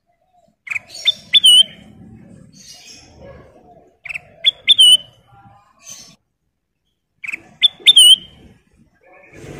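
A kutilang emas bulbul singing a short whistled phrase of a few sharp notes ending in a looping note. The phrase comes three times, about every three and a half seconds.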